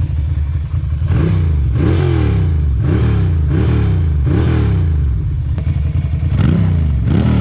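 Ducati Monster's V-twin engine running. After a steady idle for about a second, it is revved over and over, the pitch rising and falling about once a second.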